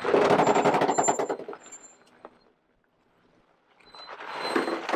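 4x4 vehicle working up a steep rocky climb, heard as a rapid train of sharp pulses. It is loudest in the first two seconds, dies away at about two and a half seconds, and builds again near the end.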